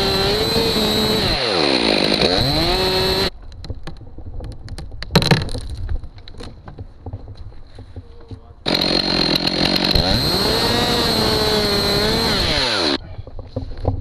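Two-stroke chainsaw at full throttle cutting into a maple trunk, its engine pitch dipping and recovering as the chain bites into the wood. It runs in two stretches of about four seconds each, with quieter clicking between them and a single sharp knock about five seconds in.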